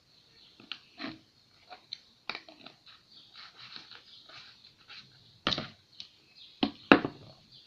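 Homemade slime being kneaded and squeezed by hand: irregular sticky squelches and clicks, with a couple of louder wet smacks in the last few seconds.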